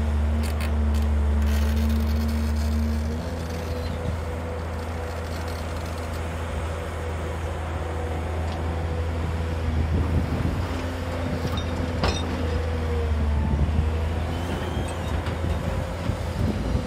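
JCB crawler excavator's diesel engine running under load, with a steady whine over it, working hard for the first three seconds and then easing off as the loaded bucket is lifted and swung over a dump truck. A sharp knock about twelve seconds in.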